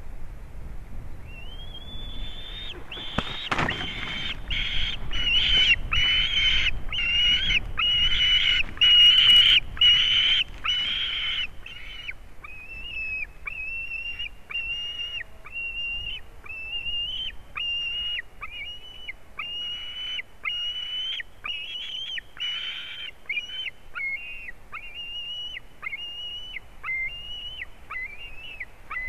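White-tailed eagle giving a long series of shrill, evenly repeated calls, about three every two seconds, loudest for the first ten seconds or so and then softer. A single sharp thump sounds about three and a half seconds in.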